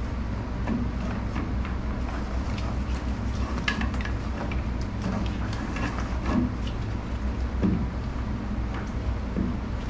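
Rope being pulled and knotted around a boat's propeller shaft and a wooden board, giving scattered light knocks and rustles, over a steady low hum.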